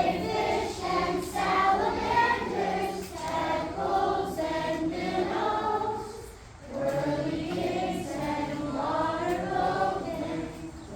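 A group of voices singing together, with a short break about six and a half seconds in.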